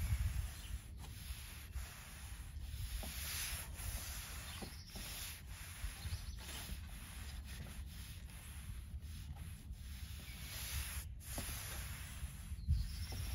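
Wide pole-mounted deck brush rubbing back and forth along Bangkirai deck boards, spreading oil in a steady run of scratchy strokes.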